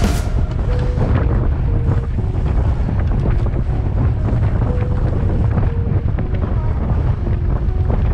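Heavy wind buffeting the microphone of a camera moving at riding speed: a steady rush with a deep rumble. Faint short notes sound underneath now and then.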